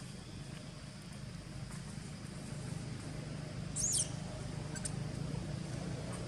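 A young macaque gives one short, high-pitched squeal about four seconds in, over a steady low hum.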